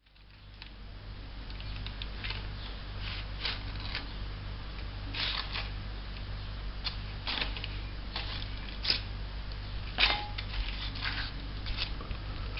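Irregular clicks and light knocks of kitchen utensils and dishes being handled, over a low steady hum. The sharpest knock comes about ten seconds in.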